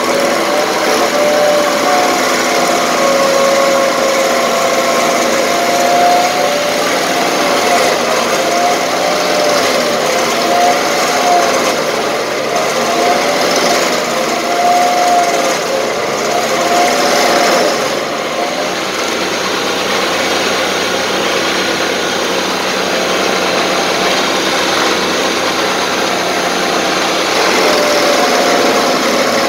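Stump grinder running under load, its cutter wheel grinding into a stump and throwing wood chips. The engine note wavers up and down throughout and eases off somewhat for a stretch past the middle before picking up again near the end.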